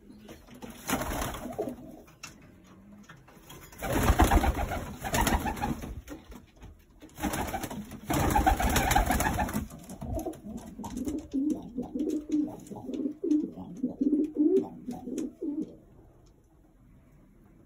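Domestic pigeons cooing, a run of short repeated low coos in the second half. Earlier come three loud bursts of rushing noise, the loudest sounds.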